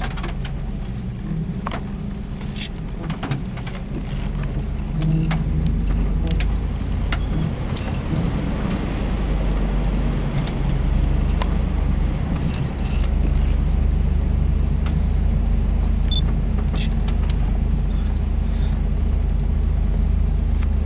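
Off-road 4x4's engine running with a low, steady drone as the vehicle drives a rutted mud track, with frequent rattles and jangles of loose parts. The engine grows louder about five seconds in and again past midway.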